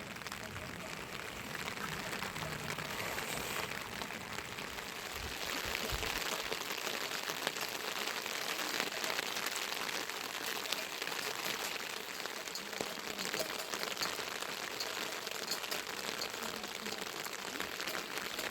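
Steady rain falling, a dense even hiss made of many small drop ticks, growing a little louder about six seconds in.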